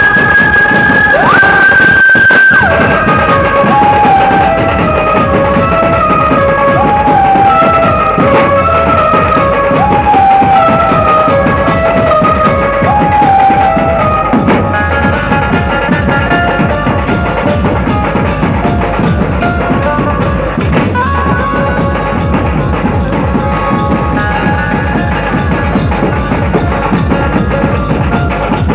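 Chhattisgarhi dhumal band playing the sher baja: a high melody line in short, stepping, repeated phrases over fast, dense drumming.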